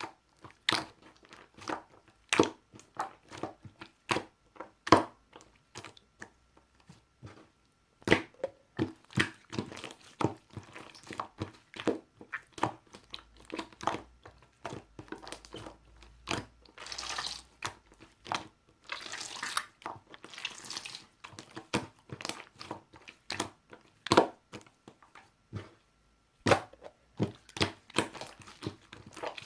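Marbled slime being squished and pressed by hand, making irregular sharp clicks and pops, with two longer hissing stretches about seventeen and twenty seconds in.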